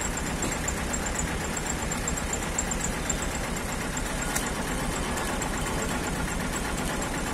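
Steady low rumble of an idling motor vehicle engine, even throughout.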